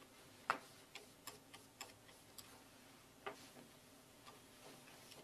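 Faint, irregular light clicks and taps of a hand and cleaning cloth working over the open printhead mechanism of a Zebra 70Xi4 industrial label printer.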